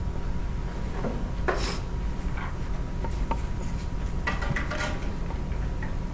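Classroom room tone: a steady low hum and a faint steady high tone, with scattered small clicks and rustles. The clicks and rustles come thickest a little past the middle.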